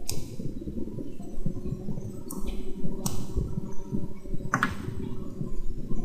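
Four sharp clicks spread over a few seconds, over a low, uneven background rumble.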